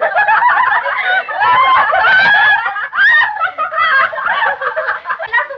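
A group of young women shrieking with laughter together, many high voices overlapping in a loud, continuous burst, heard on an early-1930s film soundtrack with its muffled top end.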